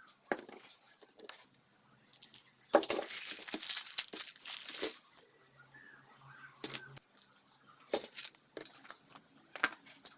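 Handling noises: scattered clicks and light knocks, with a few seconds of rustling, scraping noise in the middle.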